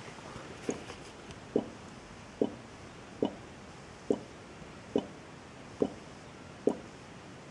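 CO2 from a beer fermenting vigorously, escaping through the fermenter's water-filled airlock in regular plops, one a little under every second. The steady rhythm is the sign of an active fermentation.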